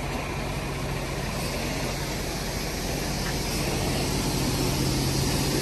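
Toter home towing a long enclosed car trailer at a crawl, its engine running with a steady low hum that slowly grows louder.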